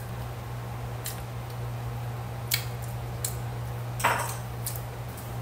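A few light clicks and taps from hands handling food at a table, the loudest about four seconds in, over a steady low hum.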